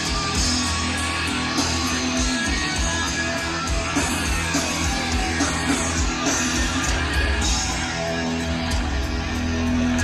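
Rock band playing an instrumental live, electric guitar over bass and drums, heard on an audience tape recording of an open-air show.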